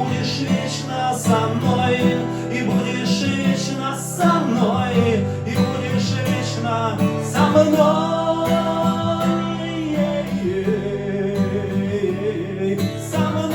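Live song: acoustic guitar strummed under a sung melody, the closing part of the song.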